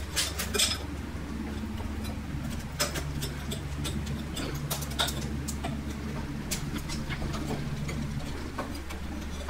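Small clicks and scratches of plastic twist-on wire nuts being screwed onto copper wire ends and of fingers handling the wires, over a steady low hum.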